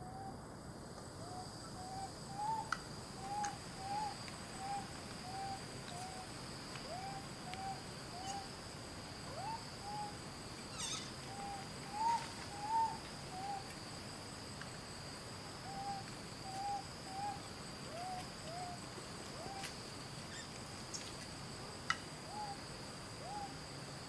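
Forest animal calls: a long run of short hoot-like notes that rise and fall, one or two a second with a few pauses, over a steady high insect drone.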